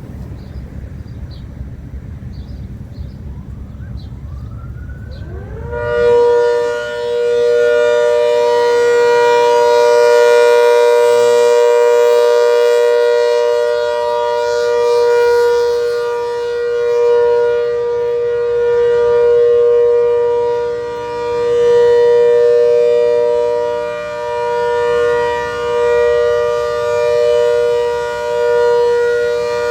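ACA Hurricane MKII civil defense siren winding up from a low pitch during its monthly test. About six seconds in it reaches a loud, steady two-tone chord that swells and fades in loudness every second or two.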